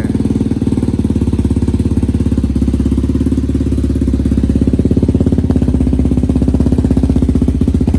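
Yamaha TTR 230's air-cooled single-cylinder four-stroke engine idling steadily on its first cold start, choke pulled, through a Big Gun full aftermarket exhaust system, in fast even exhaust pulses.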